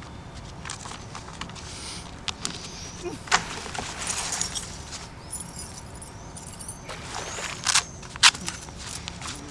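Handling noises from a small black case or wallet being opened and searched by hand: rustling with a few sharp clicks, the loudest about a third of the way in and near the end. Faint high chirping comes and goes behind it.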